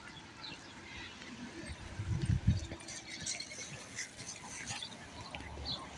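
Footsteps and light clicking while a small dog is walked on a leash over grass and asphalt, with a few louder thumps about two seconds in.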